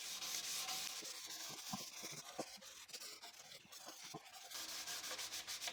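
Faint hand sanding with fine-grit sandpaper on the edges of a pine board: a soft, scratchy hiss of paper rubbing on wood, with a few light taps in the middle.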